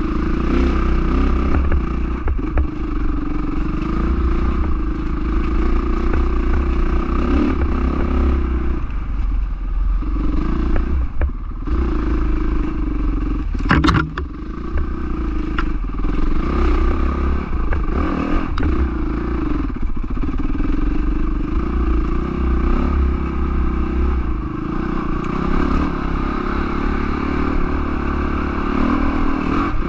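Honda CRF450R's single-cylinder four-stroke engine running under way on a dirt trail, the revs rising and falling as the throttle opens and closes. The engine drops back briefly about a third of the way in, and there is a single sharp knock a little before halfway.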